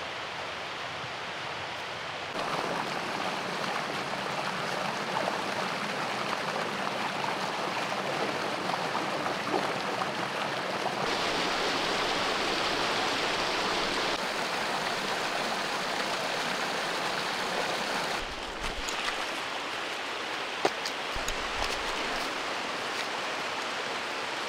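Flowing water rushing steadily, a stream's even noise that changes abruptly in level and tone a few times. One sharp click comes near the end.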